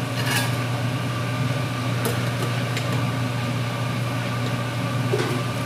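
Steady low mechanical hum of kitchen machinery, with a few faint light clinks of utensils.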